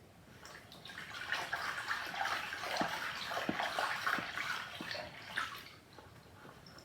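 Water sloshing and splashing as a plush toy is washed in a tub of water, with a few soft knocks; it dies down about six seconds in.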